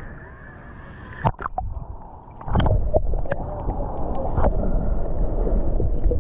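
Shallow water sloshing and splashing, with a sharp splash about a second in and heavier, continual sloshing from about two and a half seconds on.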